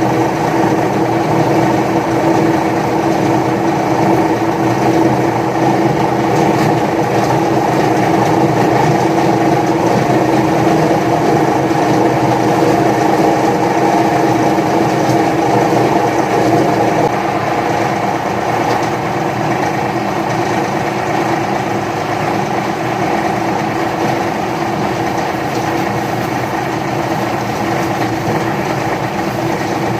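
Paper shredder running steadily, its motor and cutters humming as it shreds a batch of paper; the level dips slightly about seventeen seconds in.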